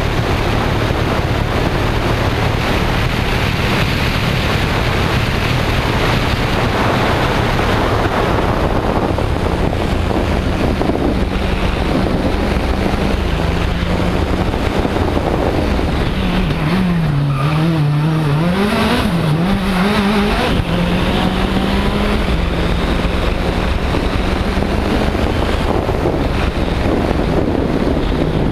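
Citroën DS3 WRC's 1.6-litre turbocharged four-cylinder engine running hard at speed, heard from an onboard camera over a rush of wind and road noise. A little past the middle the engine note dips and wavers for a few seconds, then steadies again.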